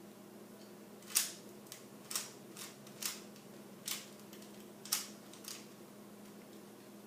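Rubik's Cube layers being twisted by hand: a run of about eight sharp plastic clicks at an uneven pace, with pauses between turns.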